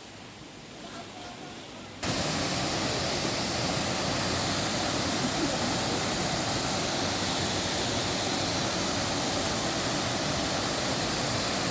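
Waterfall: a steady, even rush of falling water that cuts in abruptly about two seconds in, after a quiet start.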